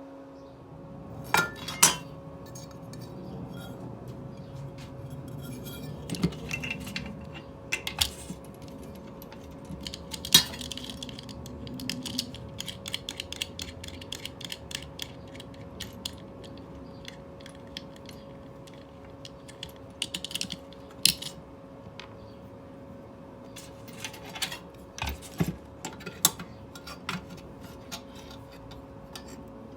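Small metal parts and hand tools clinking, clicking and knocking irregularly as they are handled, over a steady faint hum.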